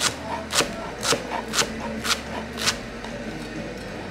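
Chef's knife chopping fresh coriander on a cutting board: six sharp chops about two a second, then a pause near the end.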